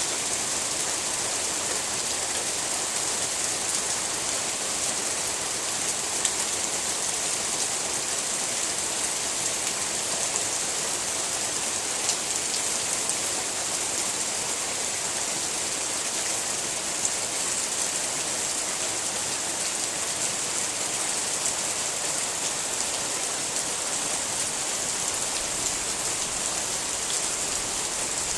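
Steady rain falling as an even hiss, with a few louder single drops ticking now and then.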